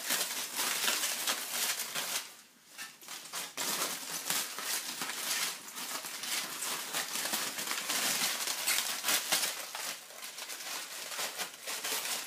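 Aluminium foil being crumpled and pressed onto a wire armature: a dense, crackling crinkle with a short lull about two seconds in.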